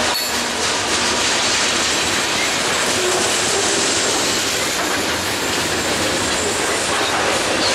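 Freight cars of a long mixed freight train rolling past: a steady, even rush of steel wheels on rail.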